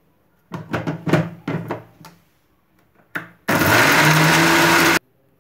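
Knocks and clatter as the steel jar and lid are settled on a Wonder Maxie Plus mixer grinder, then the grinder's motor runs loud and steady for about a second and a half, grinding onion, green chillies and whole spices with a little water into a masala paste, and cuts off suddenly.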